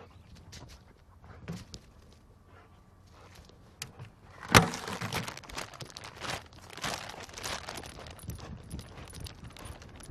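A dog moving about on a hard floor, its claws and footsteps ticking, with one sharp knock about four and a half seconds in followed by rustling and clatter.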